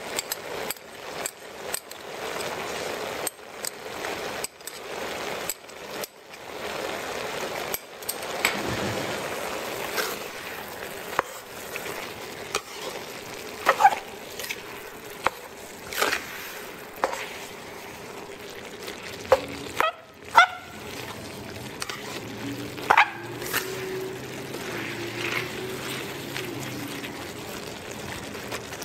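Ground pork frying in a wok over a steady sizzle, stirred with a spatula that scrapes and clicks against the pan at irregular moments.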